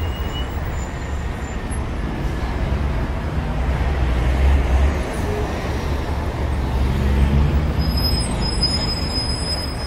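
Street traffic noise: a steady low rumble of vehicles that swells twice, with a few thin high tones near the end.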